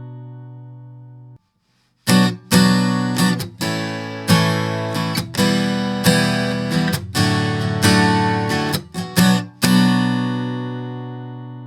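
Acoustic guitar, recorded through a modelling microphone: a ringing chord fading, then cut off about a second in. After a short gap, a run of strummed chords ends on a chord left to ring out.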